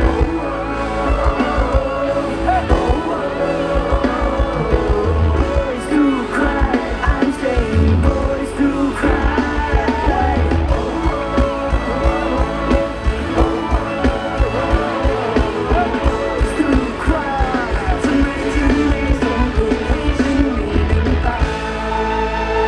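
Live pop-rock band with drums, bass guitar and electric guitar, with a singer over them. Near the end the drums stop and held chords ring on.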